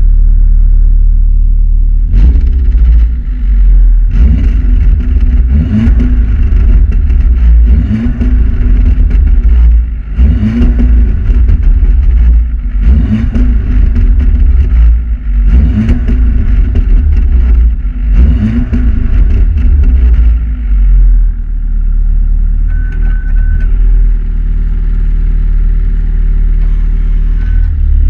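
Stock Volkswagen Golf 7 R's turbocharged 2.0-litre four-cylinder revved repeatedly, about once every two seconds, each blip rising and falling with sharp crackling exhaust pops. About twenty seconds in it settles back to a steady idle.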